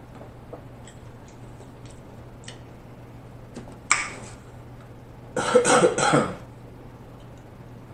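A man coughing and clearing his throat, a rough burst of about a second past the middle, after a single short sharp sound about halfway through.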